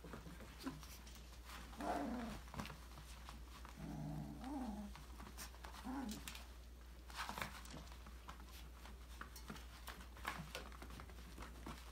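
Five-week-old Australian labradoodle puppies playing: a few short, pitched yips and whines, about two, four to five and six seconds in, among scattered light taps and clicks of paws and toys.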